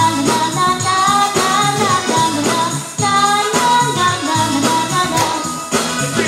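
A song playing, with singing carried over a steady beat.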